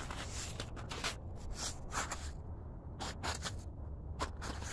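Irregular scuffing steps on dirt and snow over a steady low rumble.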